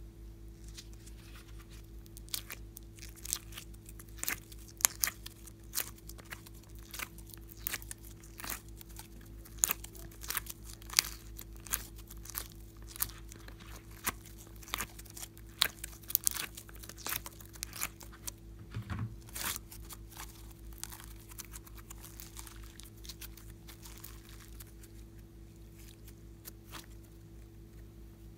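Glossy slime being squeezed and popped out of a silicone heart-shaped mold, giving irregular crackling clicks and small pops, thickest in the middle and thinning out near the end.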